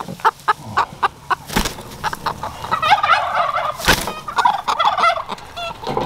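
Poultry calling: a run of quick, short clucks, then warbling calls around the middle and again near the end, with two sharp knocks in between.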